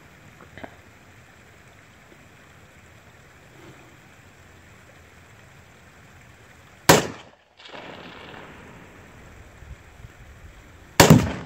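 A single gunshot about seven seconds in, then a louder blast near the end as a shot sets off a Tannerite binary exploding target. Light wind noise lies underneath.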